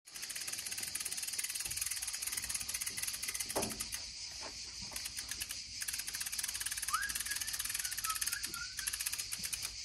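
A dense chorus of chirping insects, a fast high-pitched pulsing that runs on steadily, with a short rising whistle-like call about seven seconds in.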